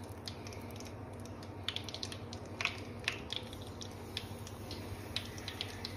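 Soft ghee scraped out of a bowl into a non-stick pan with a silicone spatula: faint scraping and scattered small clicks over a low steady hum.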